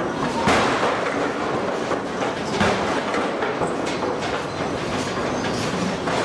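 Steady clattering din of forge-shop machinery, with a few louder knocks about half a second in and again about two and a half seconds in.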